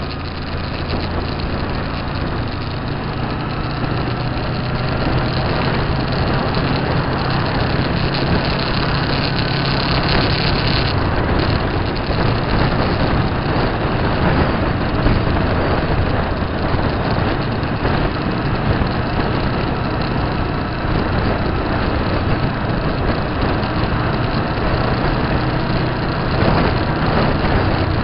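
Motorcycle engine running at a steady road speed, heard from on board under loud wind and road noise. The engine note changes about eleven seconds in.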